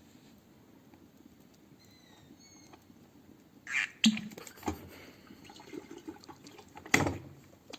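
A few seconds of quiet, then a scattering of sharp light clicks and knocks with faint rustling between them. The loudest knock comes near the end.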